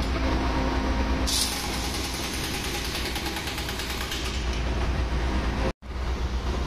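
Steady engine-room machinery drone with the fast rattle of a pneumatic impact wrench working on flange-cover nuts, and a short hiss about a second in. The sound breaks off for an instant near the end.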